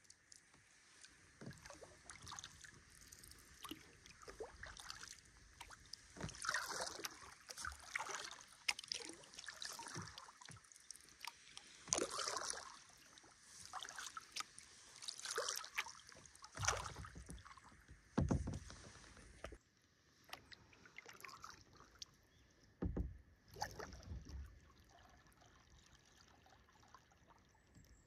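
Kayak paddle strokes splashing and dripping in calm water, irregular, every second or two, with a few dull knocks about two-thirds of the way through. The strokes thin out near the end.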